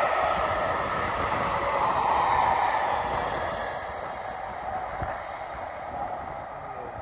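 Loco-hauled train of coaches behind two Class 47 diesel locomotives passing on the track, the rolling wheel and rail noise fading away after about three seconds as the train draws off. Wind buffets the microphone.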